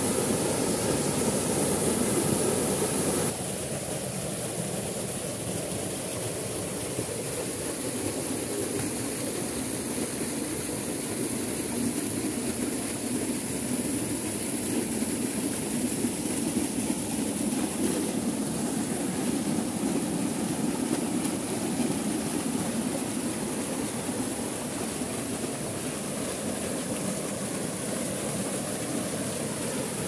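Small waterfall pouring into a rock pool: a steady rush of falling and splashing water, dropping abruptly in level about three seconds in.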